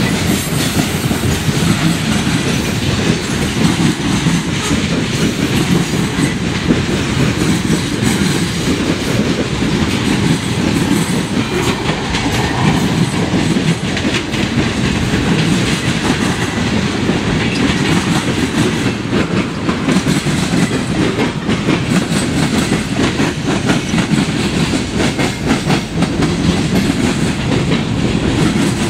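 Freight cars of a passing train rolling by at close range: a steady loud rumble of steel wheels on rail, with frequent clicks and clatter from the wheels and trucks.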